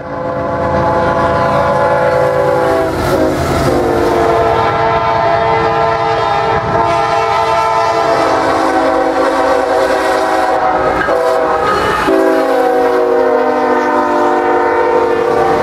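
CSX diesel freight locomotive blowing its multi-note air horn in several long blasts with a short one near the end, the usual grade-crossing signal, over the low rumble of the passing engines and wheels.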